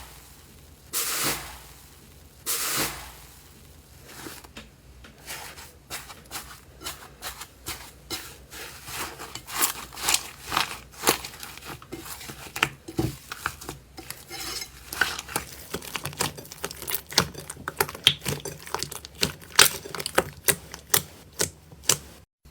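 Slime being handled: two soft swishing squelches near the start, then a run of irregular sharp clicks and pops that grows denser and louder.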